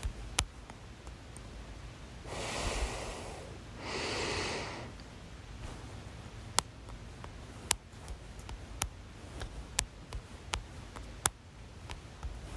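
A person with hiccups: two long, noisy breaths about two and four seconds in, then a run of short, sharp hiccup clicks roughly once a second.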